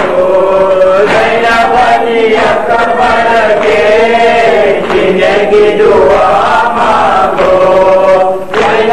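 A man chanting a noha, a slow Urdu mourning lament, into a microphone, his voice held in long, wavering melodic lines. Faint regular thuds sound beneath it, typical of the mourners' chest-beating (matam).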